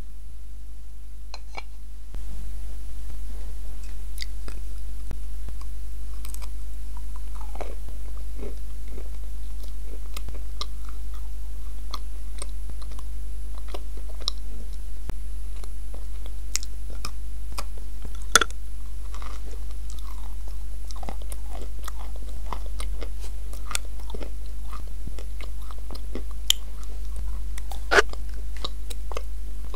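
Close-miked biting and crunching into dry pressed edible clay pieces, with chewing between bites. The sharp crunches are scattered through, the loudest about 18 seconds in and again near the end, over a steady low hum.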